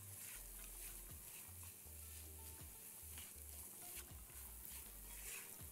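Diced carrots and green onion sizzling faintly in butter in a frying pan, stirred with a silicone spatula that scrapes lightly against the pan.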